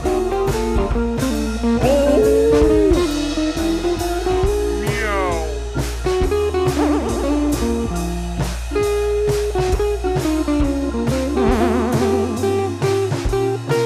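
Background music: blues-style guitar with bent and sliding notes over a bass line and a steady drum beat.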